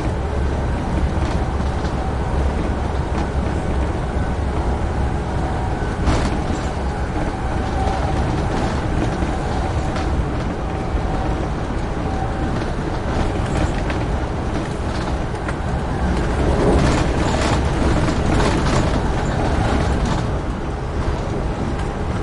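Amtrak Northeast Regional passenger train running at speed: a steady low rumble of wheels on rail, with a run of sharp clacks in the second half as the wheels cross switches at an interlocking.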